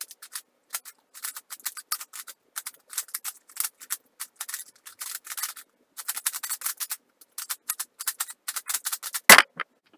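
MeiLong 3x3 speedcube being turned fast through a solve: rapid, irregular clicking and clacking of its dry, unlubricated plastic layers. Near the end there is one loud knock as the solve finishes and the cube timer is stopped.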